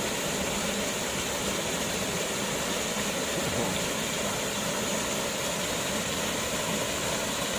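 Waterfall pouring, a steady even rush of falling water.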